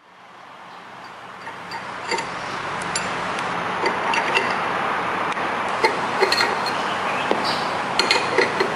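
CNC router carving wood: a steady cutting noise with a low hum under it and scattered sharp clicks, fading in over the first two seconds.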